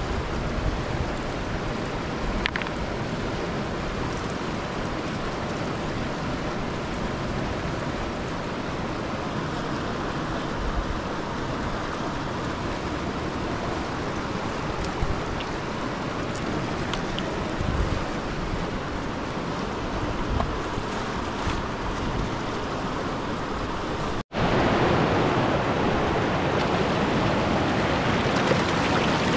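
Steady rushing of a fast-flowing river. About 24 seconds in it breaks off for an instant and comes back a little louder.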